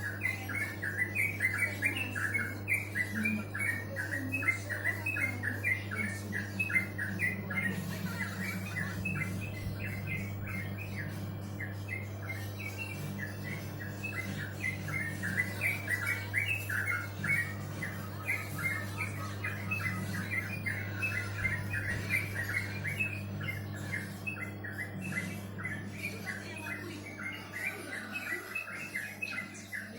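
Small songbirds chirping continuously in a fast stream of short, high calls, over a steady low hum.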